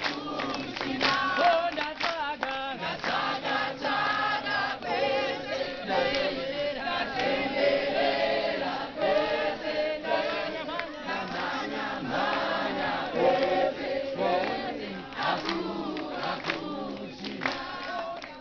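A large crowd singing together in chorus, many voices at once, with hand-clapping throughout.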